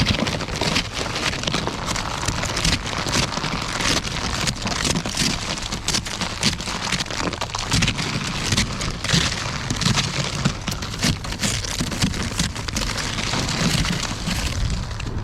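Precipitation striking close to the microphone: a dense, irregular patter of small hits over a steady low rumble.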